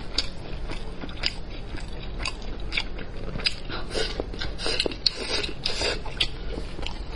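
Close-miked biting and chewing of spicy braised pork elbow skin and meat, with frequent sharp wet clicks that crowd together about four to six seconds in.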